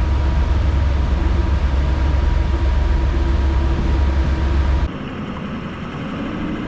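Steady low engine rumble with a faint steady hum above it. About five seconds in it drops to a quieter, duller running noise.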